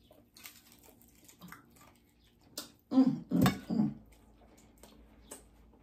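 Close-up eating sounds: chewing a bite of fried chicken, with scattered small mouth clicks and a brief vocal murmur about three seconds in.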